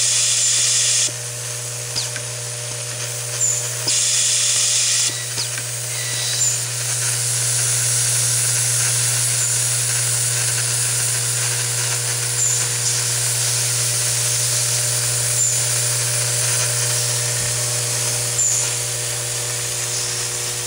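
Automatic screwdriver with a vibratory bowl feeder running. The bowl feeder gives a steady low hum throughout. The driver whirs in two high-pitched bursts of about a second, near the start and about four seconds in, then a steady hiss follows with short high chirps about every three seconds.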